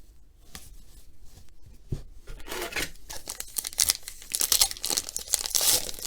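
A single soft knock about two seconds in, then a plastic foil trading-card pack wrapper being torn open and crinkled, the crackling growing louder towards the end.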